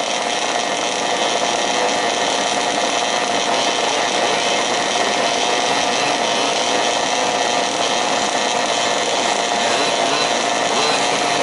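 Small two-stroke petrol engines of several 1/5-scale off-road RC cars running together, a steady chainsaw-like drone with a held high note.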